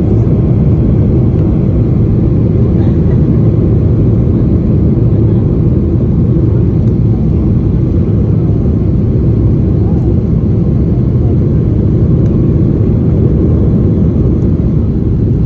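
Steady, loud low rumble of a Boeing 737-800 jet airliner, unchanging throughout.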